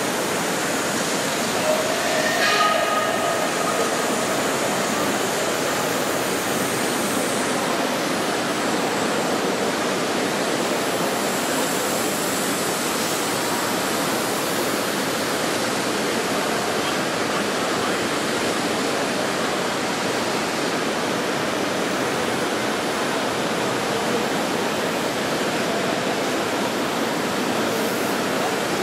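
Steady, even hiss of steam from a live steam model locomotive, with a brief pitched tone about two and a half seconds in.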